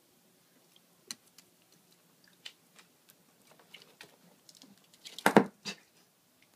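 A ferret scrambling on a clear plastic storage tub: scattered light clicks and rustles of claws on plastic and fabric, with a louder clatter of the tub a little over five seconds in.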